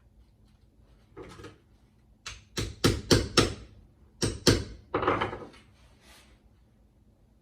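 Sharp knocks on the angle grinder's gear head while freeing a stuck bearing-retaining screw: five in quick succession, then two more about a second later, followed by a brief rustle.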